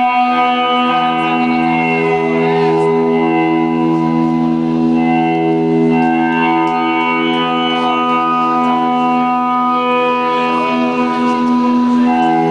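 Band playing live: a steady drone of long held notes stacked into a thick chord, barely changing.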